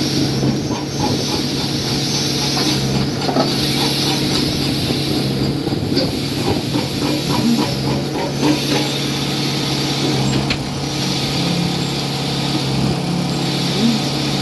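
Concrete pump's engine running steadily at a construction pour, with a hiss that swells and fades every few seconds and scattered light clanks.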